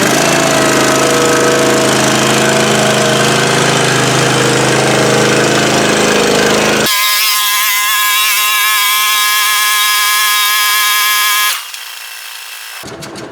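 Motor-driven digging tool for the post holes running steadily under load, with a steady whine. Its sound changes abruptly about seven seconds in and drops away near the end.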